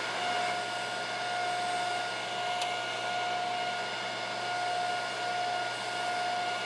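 Electric motor of a deburring grinder running with a steady whine, as the edge of a brass medal is bumped against the spinning wheel to remove the burr left by the drill.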